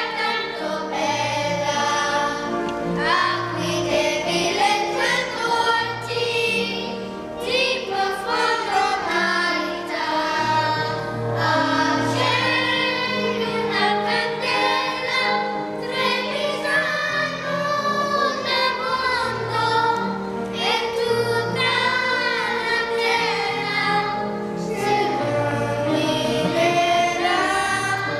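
Mixed choir of men, women and children singing a folk anthem in several parts, with held notes and low men's voices underneath.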